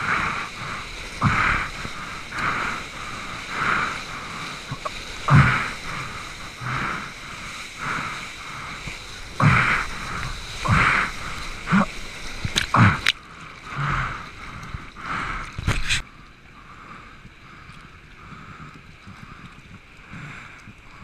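River whitewater splashing and rushing over a bodyboard and board-mounted camera while surfing a standing wave, in rhythmic surges about every second and a half with occasional thuds. About sixteen seconds in it cuts abruptly to a quieter, steady wash of choppy water.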